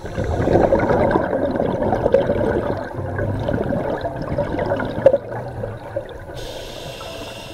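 A scuba diver's exhaled bubbles gurgling and rushing out of the regulator exhaust, loudest in the first few seconds and fading. Near the end comes a short hiss, the next breath drawn through the regulator.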